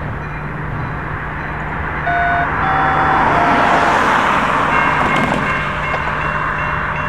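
Diesel switcher locomotive approaching a grade crossing and sounding its horn in short held blasts about two seconds in, under a steady engine hum. About five seconds in, the crossing's Safetran electronic bell starts ringing in quick, even dings as the signals activate.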